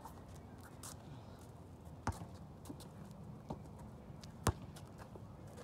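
Basketball bouncing on an outdoor hard court: a few irregular sharp thuds, the loudest about two seconds in and again about four and a half seconds in, with lighter ones between.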